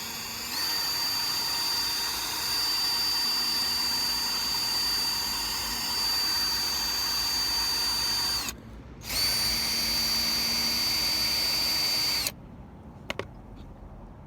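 Small power drill drilling out the rivets of a diecast model race car: a steady high whine that stops briefly about eight seconds in, runs again for about three seconds, then cuts off, followed by a single click.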